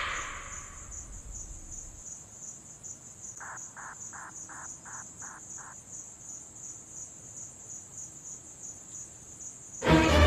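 Crickets trilling steadily: a high, rapid, even pulsing. About three and a half seconds in comes a lower run of seven quick chirps, and just before the end a much louder sound cuts in.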